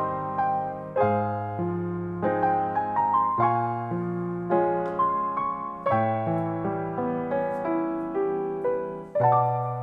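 Background piano music: gentle notes and chords struck about once or twice a second, each fading slowly.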